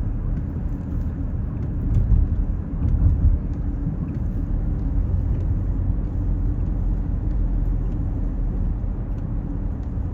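Steady low road rumble and engine noise of a moving car, heard from inside its cabin, swelling louder briefly about two and three seconds in.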